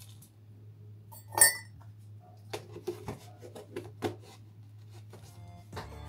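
A metal teaspoon scooping granulated tea out of a metal tin and clinking against the tin and a ceramic cup: one sharp clink about a second and a half in, then a run of lighter clinks and taps.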